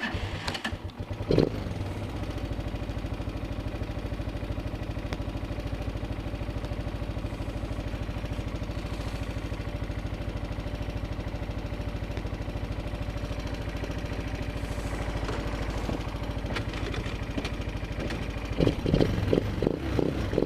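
ATV engine running steadily at an even, unchanging speed. A few knocks and some clatter come at the start and again near the end.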